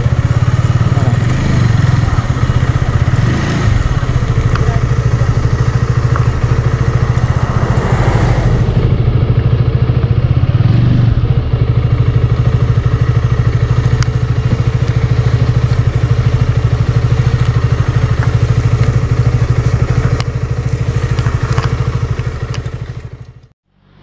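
Motorcycle engine running steadily while riding, a constant low engine note with road and wind noise over it; the sound dips out briefly near the end.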